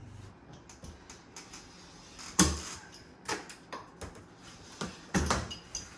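Scattered sharp clicks and knocks of luxury vinyl plank flooring being handled and set down on the floor, the two loudest about two and a half seconds in and near the end.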